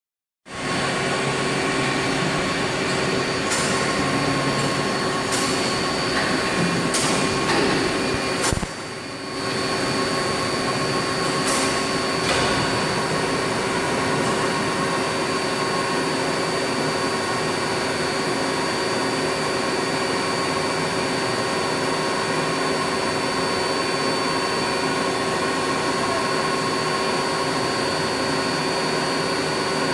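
CNC machines running on a machine-shop floor: a steady mechanical hum with several constant high whining tones. A few sharp clicks or knocks come in the first twelve seconds, and the noise dips briefly just before nine seconds.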